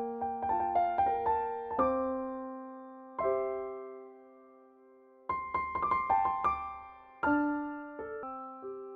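Background music: an electric piano playing short runs of notes that ring and fade, with brief pauses between phrases.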